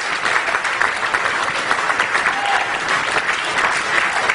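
Wedding guests applauding the newly pronounced couple: dense, steady clapping from a large crowd.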